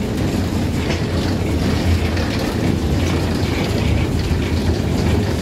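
Steady, loud low rumble of a vehicle or machinery, with a deep hum underneath.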